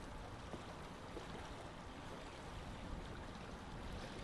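Faint, steady seaside ambience: an even hiss with a low rumble and no distinct events.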